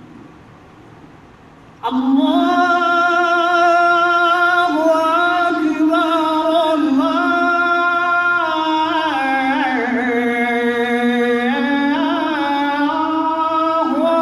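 A male muezzin chanting the adhan, the Islamic call to prayer, into a microphone. After a pause of about two seconds comes one long, drawn-out phrase, its pitch sliding and wavering up and down in ornamented turns.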